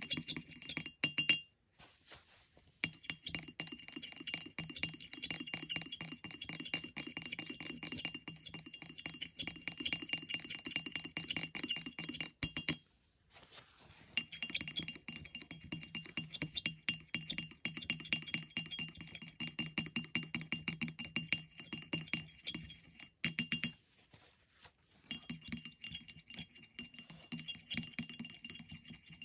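A metal stirring tool clinking and scraping against a ceramic palette well as it mixes thick paint: rapid, uneven taps that stop briefly three times.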